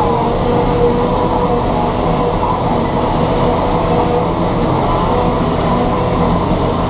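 John Deere 7710 tractor's six-cylinder turbodiesel running steadily at working revs, a constant engine drone with a thin whine riding above it.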